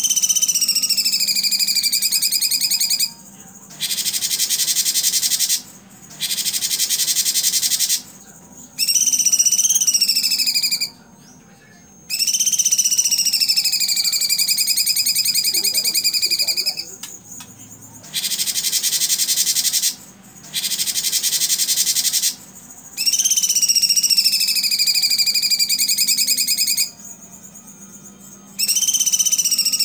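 Cucak cungkok singing loudly in phrases of two to four seconds with short pauses between them. The song alternates between wavering, gliding whistled notes and dense, very fast rattling bursts, the 'tembakan' (shooting) song prized in a cucak cungkok.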